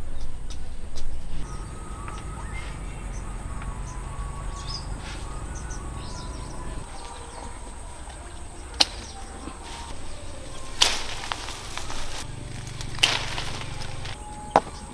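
Leafy swishes and a few sharp snaps as large pomelos are tugged from a pomelo (grapefruit) tree's branches, over a low outdoor rumble in the first half.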